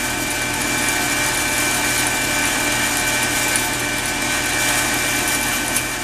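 Split-system heat pump outdoor unit running steadily, its compressor and fan giving a constant hum with a steady high whine, as the liquid-line service valve is closed to pump the R22 refrigerant down into the unit. A light click near the end.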